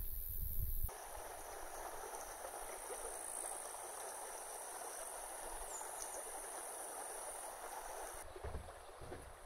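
Shallow stream flowing over stones: a steady rushing of water. Low thumps come briefly at the start and again near the end.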